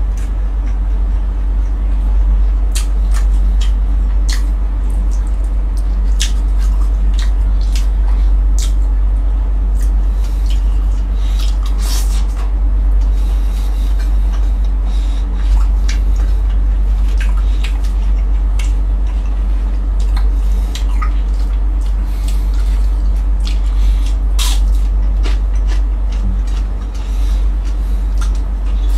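Close-miked eating sounds: irregular wet smacks and crunchy clicks of chewing crispy fried galunggong (round scad), over a steady low hum.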